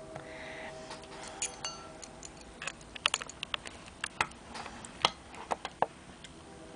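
Irregular light metallic clicks and taps of a screwdriver, small screws and clarinet keys being handled while a clarinet's keywork is taken apart, most frequent about three to five and a half seconds in.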